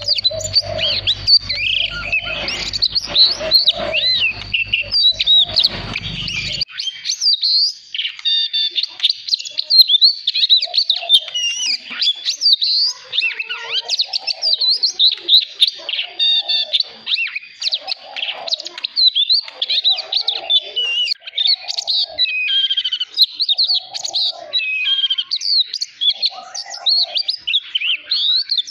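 Oriental magpie-robin singing a long, varied, continuous song of quick high whistles and warbled phrases. A low rumble runs under it at first and cuts off suddenly about six and a half seconds in.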